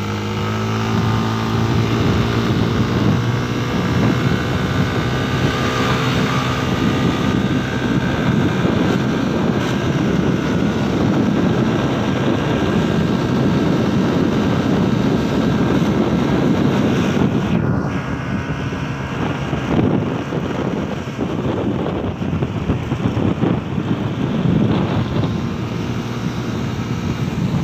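Yamaha Aerox scooter's single-cylinder engine, bored out to 190 cc, running steadily under load while climbing a hill. Heavy wind rush on the microphone builds over it after the first few seconds.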